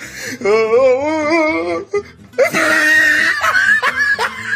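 A high voice singing one long wavering note, then a louder burst of shrill, laughing voices from a group of youngsters.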